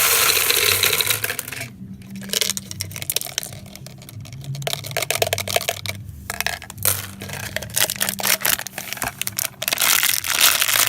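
Gumballs and Skittles clattering as they are poured and shaken out of a container: a dense rattle of small hard clicks over the first second and a half, then scattered clicks.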